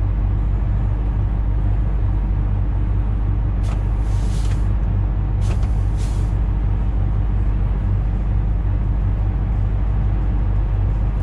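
Truck engine running at a steady low drone while driving, with two short bursts of hiss about four and six seconds in.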